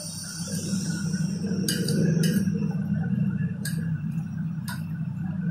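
A spoon stirring minced chicken filling in a bowl, clinking against the side of the bowl four times, over a low steady hum.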